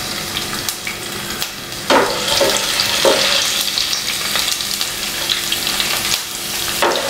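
Chopped garlic sizzling in hot sesame oil in a nonstick pan. From about two seconds in, a wooden spatula stirs it, scraping across the pan, and the sizzle grows louder.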